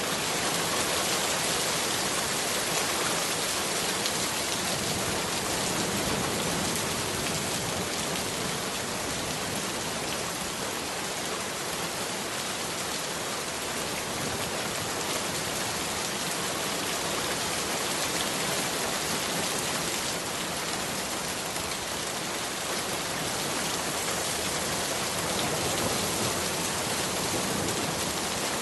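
Heavy rain falling steadily, an even hiss with no thunderclaps or other distinct events.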